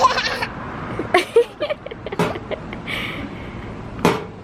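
Brief snatches of indistinct voices and a few sharp clicks over a steady low background noise.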